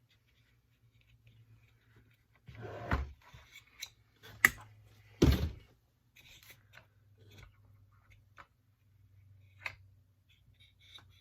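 Hand work on a small two-stroke blower engine's fan and flywheel: scattered clicks and clinks of tools and metal parts, with two louder, short knocks about three and five seconds in. A faint steady low hum sits underneath.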